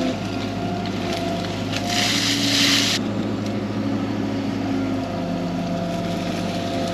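Excavator's diesel engine running steadily, heard from inside the cab, with hydraulic tones that shift in pitch as the arm pulls in. About two seconds in, a loud hiss lasts for about a second.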